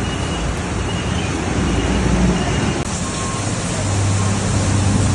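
Heavy rain and road traffic on a flooded street: a steady wash of rain and water noise with vehicle engines running underneath. The sound changes abruptly about three seconds in, and a low engine hum, from a bus passing, grows stronger after that.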